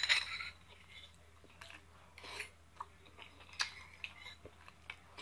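Close-up eating sounds: a fork clinks sharply against a small dish right at the start, then soft chewing and scattered small clicks of the fork as cooked greens are eaten.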